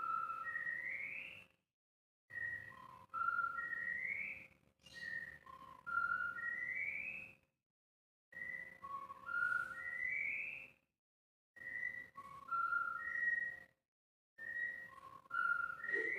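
White-rumped shama whistling the same short phrase over and over, about six times: a flat note, a lower note, a middle note, then a rising slurred whistle, with short pauses between phrases.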